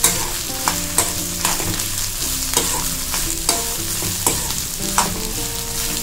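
Metal spoon stirring and scraping chopped ginger and dried red chillies in an aluminium kadai, frying in a little sesame oil over a steady sizzle, with sharp scrapes against the pan about twice a second.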